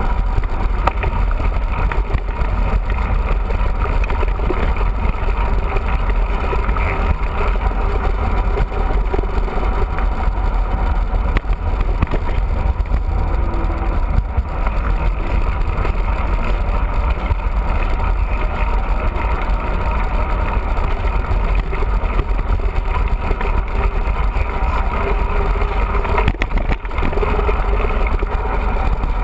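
Steady wind buffeting and rolling rumble from a camera riding on a mountain bike in motion.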